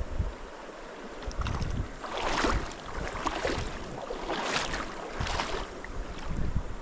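River water running, with wind buffeting the microphone; the water noise swells louder four times between about two and five and a half seconds in.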